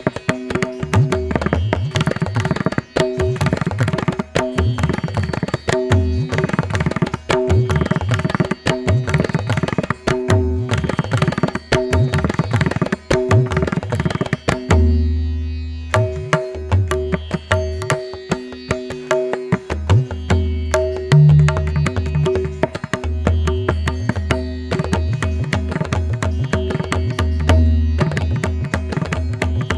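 Background music: Indian instrumental with tabla playing a fast rhythm over steady held drone notes, the drumming pausing briefly about halfway through.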